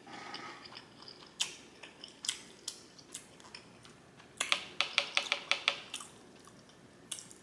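A person chewing a mouthful of ramen noodles close to the microphone, with wet mouth-smacking clicks: a few single clicks, then a quick run of them about halfway through.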